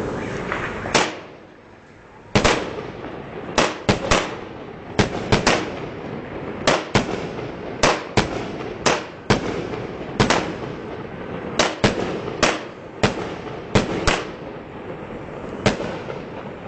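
Fireworks going off: an irregular series of sharp bangs, often two or three close together, over a steady rumble of more distant blasts, with a short lull about a second in.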